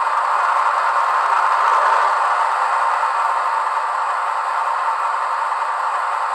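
Model railway sound decoder playing the diesel engine sound of an M 262 railcar, idling steadily with a rattly timbre through the model's small loudspeaker, which gives it almost no bass.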